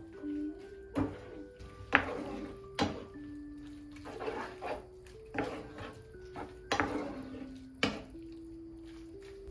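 Dishes and cutlery clinking and knocking against each other, a string of sharp strokes about once a second with one louder clink about two seconds in, over soft background music of held notes.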